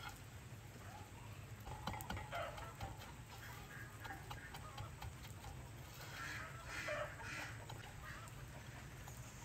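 Chickens clucking on and off, loudest about two seconds in and again around six to seven seconds in, over a steady low hum.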